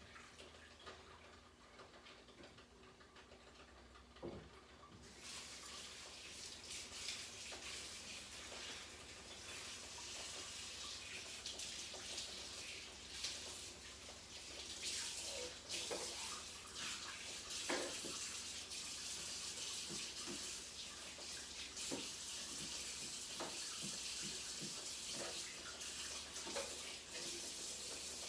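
Kitchen tap running into a sink, turned on fuller about five seconds in, with a few scattered knocks of things handled in the sink.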